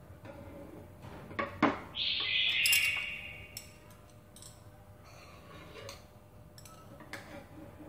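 Metal spatula and knife clinking, knocking and scraping against a nonstick frying pan while an egg omelette with leaves is turned over, a handful of sharp knocks spread through. About two seconds in there is a louder high-pitched warbling sound lasting about a second.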